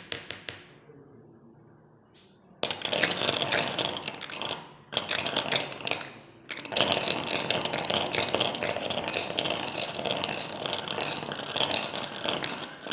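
A paperweight clattering rapidly against a hard surface in three long runs, with brief pauses about five and six and a half seconds in. A few sharp taps come at the very start.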